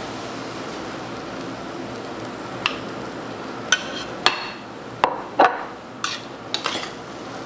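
Noodles sizzling steadily in a wok, then from about two and a half seconds in, about eight sharp clanks of a metal spatula knocking and scraping against the wok, some with a brief metallic ring.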